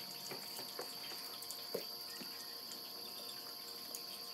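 Quiet mealtime sounds: a few faint clicks and taps of spoons and dishes over a steady high-pitched whine.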